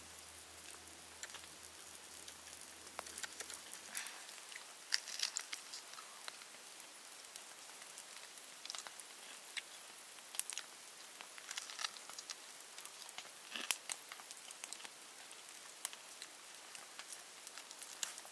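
Wood campfire crackling: a soft steady hiss with scattered sharp pops at irregular intervals.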